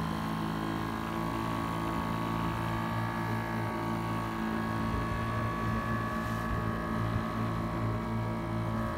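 Motorboat engine running at a steady speed, an even drone over a constant rushing noise.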